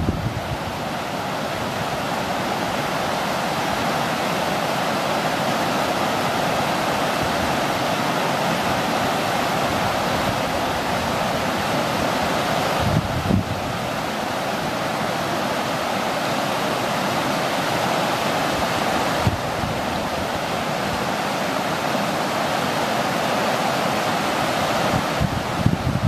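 Mountain stream rushing over rocky whitewater rapids, a steady, even rush of water. About halfway through and again near the end, brief low buffets hit the microphone.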